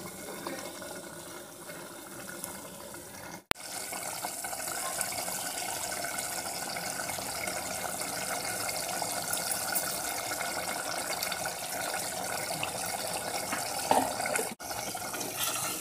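Fish curry simmering and bubbling in an aluminium pot over a gas burner: a steady, even bubbling hiss, cut off briefly twice.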